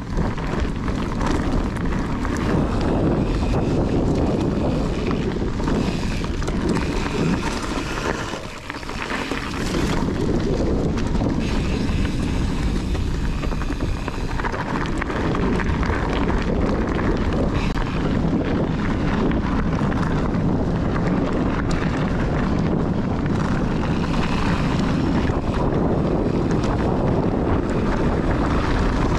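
Wind rushing over a body-mounted GoPro's microphone, together with the rolling noise of a Kona Process 153 mountain bike riding a trail. The noise dips briefly about eight and a half seconds in.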